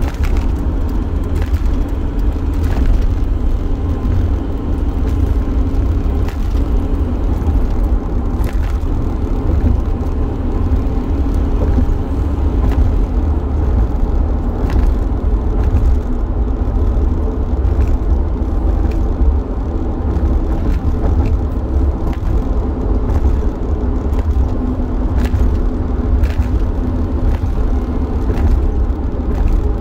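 Steady low rumble of a van's engine and road noise heard inside the cabin while driving, with a few brief clicks or rattles here and there.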